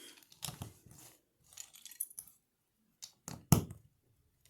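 Small plastic LEGO pieces clicking and clattering as they are handled, a scatter of short sharp clicks with the loudest about three and a half seconds in.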